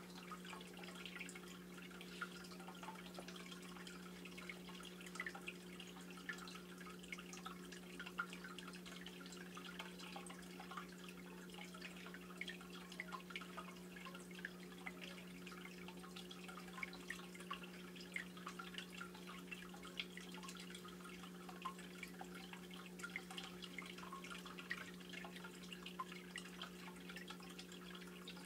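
Saltwater aquarium running, faint: a steady low hum with quiet, irregular dripping and bubbling of circulating water.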